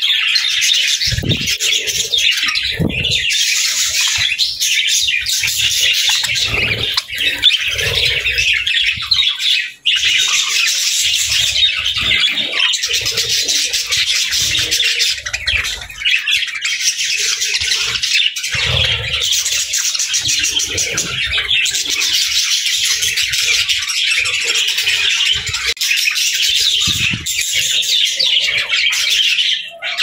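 A flock of budgerigars chattering and chirping all at once, a dense, continuous warble of many birds, with occasional low thumps beneath and a few brief dips in the chatter.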